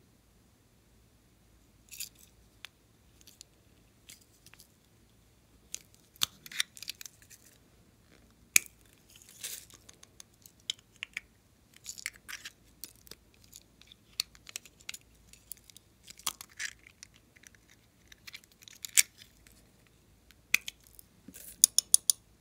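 Plastic lipstick cases being handled: caps pulled off and tubes twisted and tapped, giving scattered sharp clicks and brief scraping rustles, with a quick run of clicks near the end.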